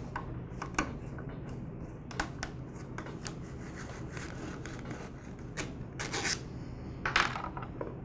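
Scattered light clicks and scrapes of a screwdriver backing out the screws of a plastic air filter base, then the base being handled and lifted off.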